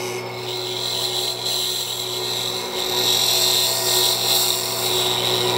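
Wood lathe running with a steady hum while a finisher turning tool cuts the spinning wooden screwdriver handle, a continuous scraping hiss of shavings coming off that strengthens about half a second in.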